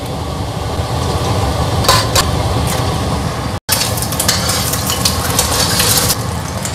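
An egg frying in hot oil in a stainless steel wok, sizzling steadily and sizzling louder about four seconds in, while a metal spoon scrapes and clicks against the pan as it breaks up the egg.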